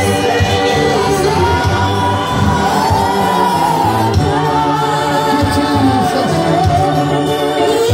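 Gospel singing: several voices singing together in long held, gently wavering lines over a steady low accompaniment.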